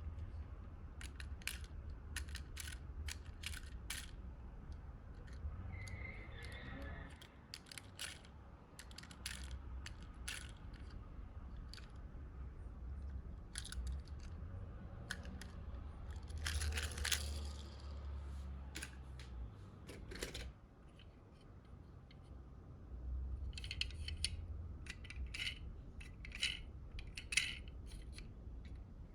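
Small die-cast toy cars clicking and clinking against each other as they are handled and picked through in a box, in irregular sharp taps with busier clusters about halfway through and near the end.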